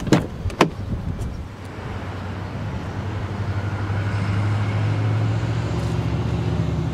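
Two sharp clicks as a pickup truck's exterior door handle is pulled and the latch releases, opening the door. A low vehicle engine hum then swells over the next few seconds.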